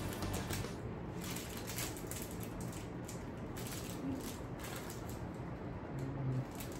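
Plastic candy wrappers crinkling and rustling in irregular crackles as hands sort through a tray of wrapped sweets and pick one out.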